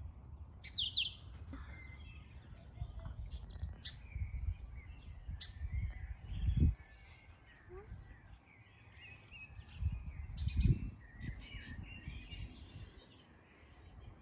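Birds chirping in short, scattered calls over a low rumbling background, with two dull low thumps, about six and a half and ten and a half seconds in, louder than the birdsong.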